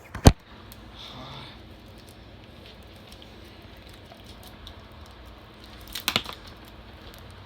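Handling noise during a DVD unboxing: a sharp click just after the start, faint rustling and small ticks, then a quick run of clicks about six seconds in.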